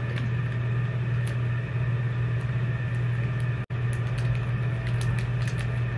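A steady low hum with faint scattered clicks. The sound drops out for an instant about three and a half seconds in.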